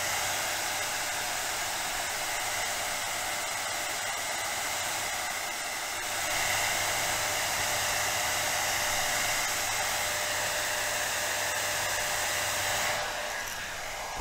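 Hot-air blower running steadily, heating the glass to soften the digitizer adhesive. It gets a little louder about six seconds in and eases off near the end.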